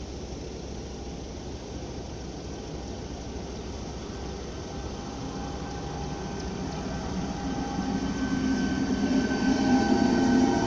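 A ČD City Elefant (class 471) double-deck electric train approaching a level crossing. Its hum and several whining tones grow steadily louder from about halfway, until the train reaches the crossing near the end.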